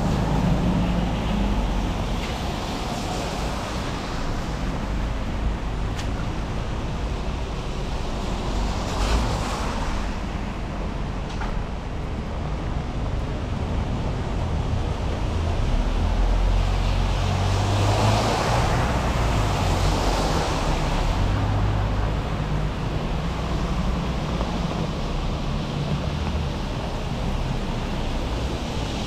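City street traffic on wet roads: cars passing one after another with tyre hiss on wet tarmac over a low engine rumble, the loudest going by about two-thirds of the way through, against a steady wash of rain.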